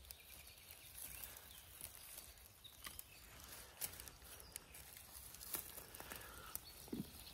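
Quiet outdoor ambience with a few faint, scattered clicks and rustles.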